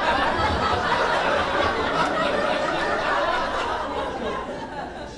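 Comedy-club audience laughing at a joke, the laughter dying down over the last second or so.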